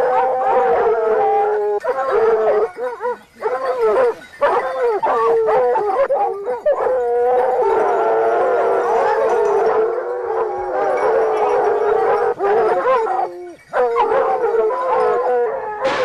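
A pack of Ariégeois hounds baying at a wild boar held at bay, many voices howling and barking together almost without pause.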